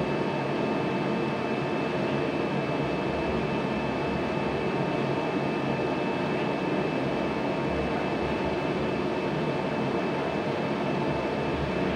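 Tanker truck's engine running steadily as the truck moves slowly: a constant rumble with a thin, steady high tone over it.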